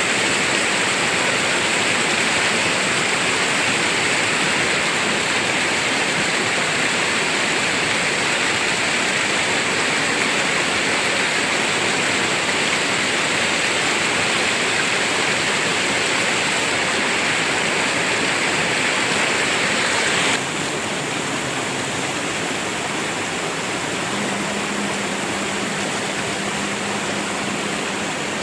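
Rushing river water, a steady noise with no pauses. About two-thirds of the way through it changes abruptly to a slightly quieter rush.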